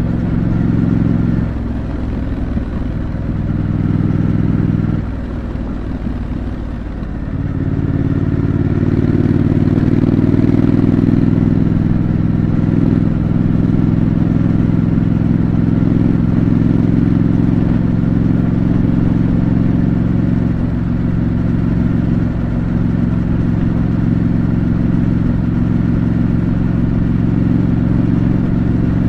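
2025 Triumph Scrambler 900's parallel-twin engine running through its stock exhaust while riding. About a second and a half in, the engine note drops and quietens for several seconds, then picks up again about seven seconds in and holds steady.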